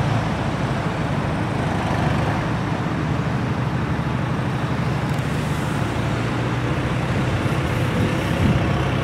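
Heavy lorry engines running at a steady low drone, with no revving or change in pitch.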